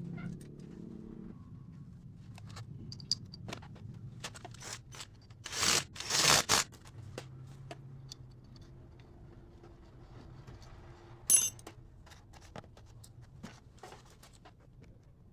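Small metal parts and hand tools handled at a workbench: scattered light clicks and scrapes, two short hissing bursts about six seconds in, and a sharp metallic clink with a brief ring about eleven seconds in.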